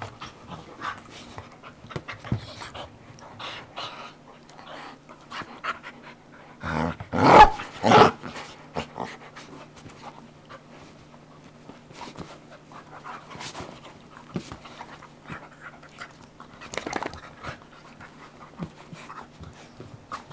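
Two dogs, a Brittany Spaniel/cattle dog mix and a German Shepherd, play-fighting: panting with many short clicks and scuffles, and a loud vocal outburst from one of them about seven seconds in, with a shorter one near the end.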